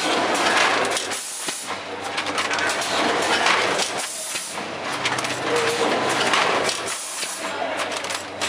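Rotary pouch packing machine running: air hiss and mechanical clatter from its grippers and pneumatics, surging and easing in repeated cycles.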